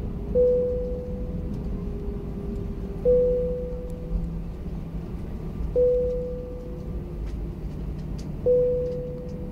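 Steady low rumble inside an airliner cabin as the plane rolls along the runway after landing. Over it, a clear single-pitched tone like a chime rings four times, evenly about every two and a half seconds, each ring fading away.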